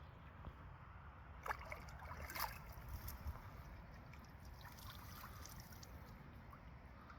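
Faint sloshing and a few small splashes of pond water, the loudest about one and a half and two and a half seconds in, as a carp is held in the shallows to recover before release.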